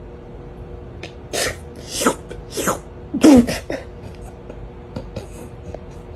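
Four sharp sneezes in quick succession, about half a second apart, starting a little over a second in.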